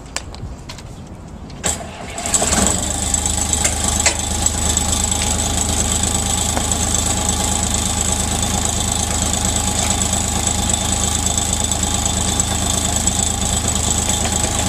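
A few sharp clicks, then about two seconds in the sewer jetter machine's engine starts and runs steadily with a high whine.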